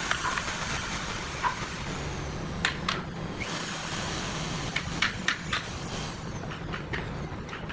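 Scattered sharp clicks and knocks over a steady low hum and background noise, with a faint high whine that rises and then slowly falls twice.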